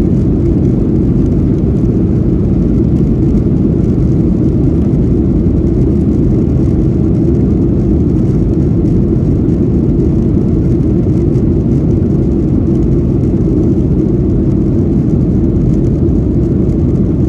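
Steady, even cabin rumble inside a Boeing 737-800 in flight, made by airflow and its CFM56-7B turbofan engines.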